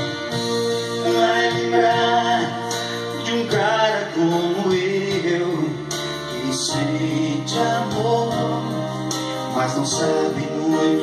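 Electronic arranger keyboard playing an instrumental passage of a slow song: sustained chords over a bass line, with a wavering melody line on top.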